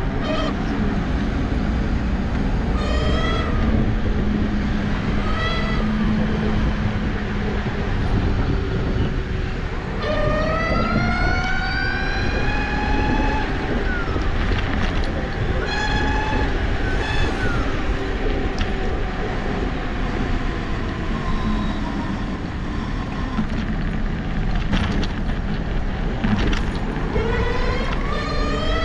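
Fiido Q1's stock electric hub motor, driven through a step-up voltage module, whining in rising glides as the scooter speeds up, the longest climbing steadily from about ten seconds in. It runs under heavy wind rumble on the microphone.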